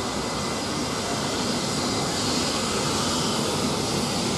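The Fokker 100's twin rear-mounted Rolls-Royce Tay turbofans running at taxi power as the airliner rolls. It is a steady jet rush with a thin high whine.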